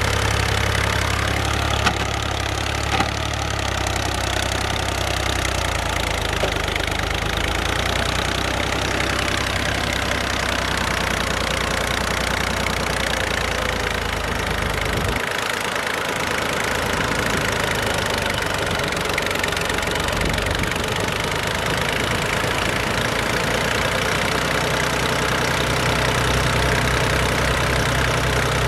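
Diesel engine of an Al-Ghazi New Holland farm tractor running steadily under load as it drags a rear implement through the soil with its front wheels reared off the ground. Two short sharp clicks sound about two and three seconds in.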